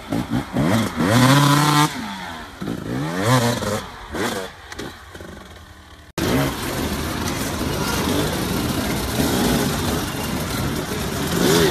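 Enduro dirt bike engine revving in bursts, its pitch rising and falling as it climbs a rough hill track, then fading. About six seconds in a sudden cut brings a steadier, louder din of motorcycle engines and outdoor noise.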